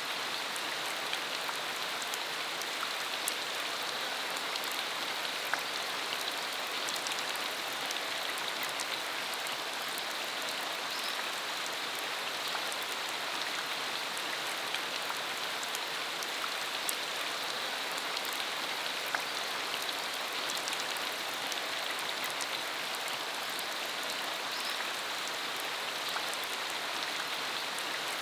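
Steady rain falling on a dirt road, an even hiss with scattered sharper taps of single drops.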